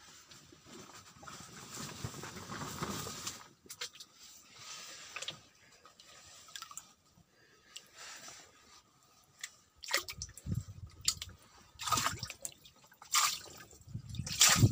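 Water dripping and trickling into a shallow tub as water is added little by little to acclimatise shrimp fry, with a series of knocks and handling bumps in the last few seconds.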